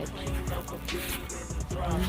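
Background hip hop music with a rapped vocal over a steady beat.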